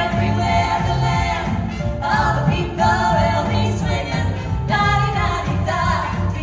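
Vocal group singing a holiday song in close harmony, holding long chords over a steady stepping bass line.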